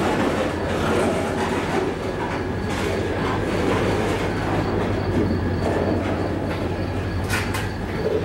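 Steel wheels of a freight train's covered hopper cars rolling past close by: a steady rumble on the rails, with a few sharp clacks.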